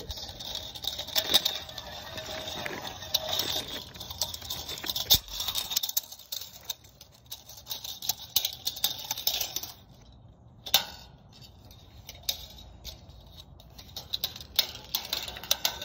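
Fourteen-gauge steel wire being unreeled from a plastic spool and pulled along, with a scraping, rattling hiss and many small ticks of wire and spool. It goes quieter after about ten seconds, leaving scattered ticks and one sharp click.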